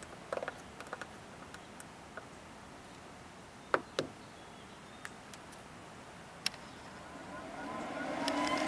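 Clicks from the control dial on a Traeger Pro 575 pellet grill's controller as it is turned and pressed, with two sharper clicks about four seconds in. From about seven seconds the grill's induction fan starts up, its hum rising and then holding steady as the grill begins igniting.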